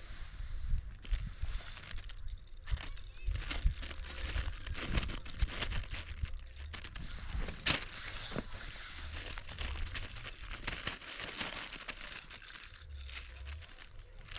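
Irregular crinkling and rustling close to the microphone, with a sharper crackle about eight seconds in.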